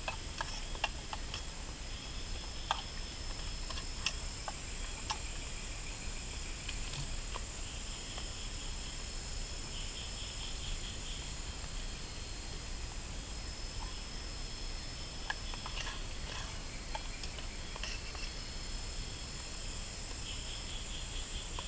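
Night jungle insects singing: a steady high-pitched buzz with a fainter steady whine under it and stretches of pulsed trilling. Over it come scattered light clicks and clinks of cookware being handled at a small gas stove.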